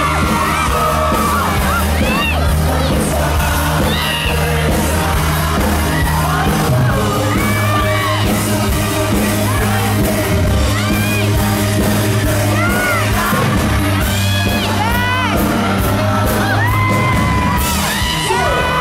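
Live pop band playing amplified in a large hall: sung vocals over a steady bass and beat, with fans yelling and screaming along.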